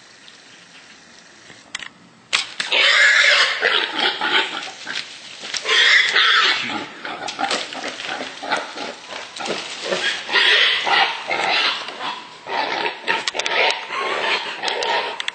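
Wild hog squealing loudly in a rapid, unbroken string of calls that starts suddenly about two seconds in, just after a single sharp click.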